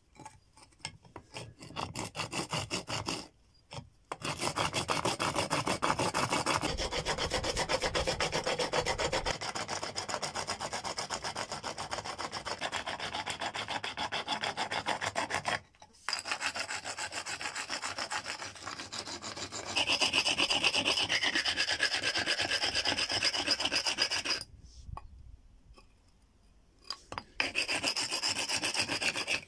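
Rapid back-and-forth rasping of a rough stone scraped along an animal bone, grinding the bone down to shape a dagger. The strokes stop briefly about three seconds in and again about sixteen seconds in, and pause for a couple of seconds near the end.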